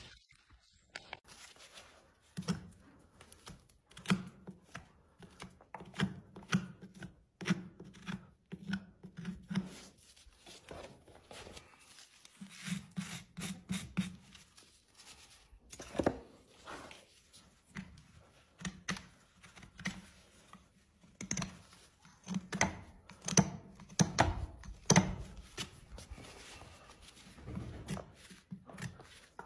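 Hoof-trimming tools cutting and paring a horse's hoof: an irregular series of crisp cuts and scrapes.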